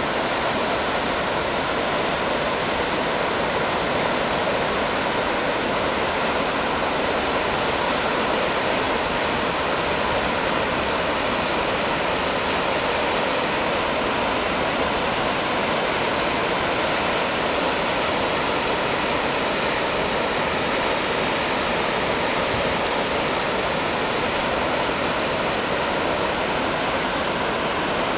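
Waterfall running high after a hurricane's rains: a steady, dense rush of falling water with no let-up.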